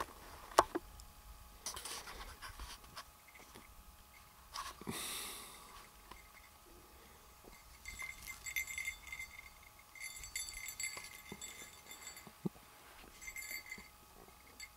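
A German shepherd's collar tags jingling in short bursts as she moves about in the grass, three times in the second half, among scattered small clicks.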